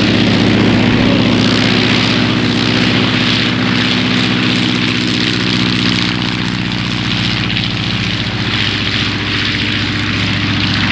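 Large radio-controlled model aircraft engine running at a steady, even pitch, with no rise or fall in speed.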